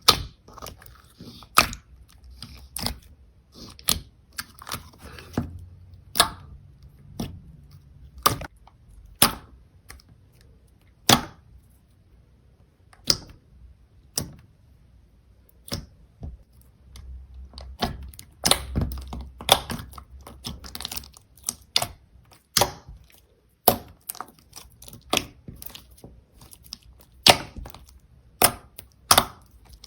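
Slime being squeezed and pressed by hand, giving sharp irregular clicks and pops about once or twice a second.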